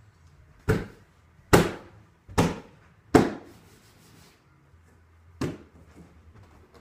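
Five sharp thumps in a quiet room, the first four a little under a second apart and the last after a gap of about two seconds, each dying away quickly.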